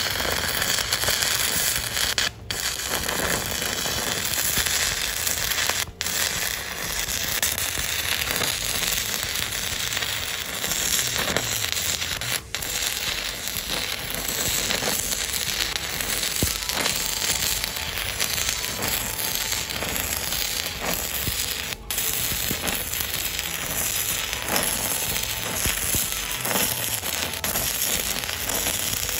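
Stick (MMA) welding arc from a Volt TIG210BV 200 A inverter welder, crackling and sputtering steadily as a coated electrode burns along a steel plate, with a few brief breaks in the arc.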